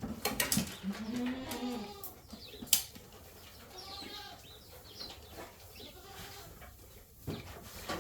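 Dairy goats bleating, loudest in the first second or so, with birds chirping faintly and a single sharp knock near three seconds in.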